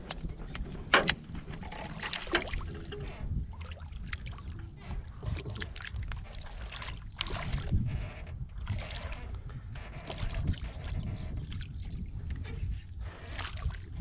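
Water splashing and sloshing at the side of a small boat, with irregular knocks, the loudest about a second in, over a steady low rumble.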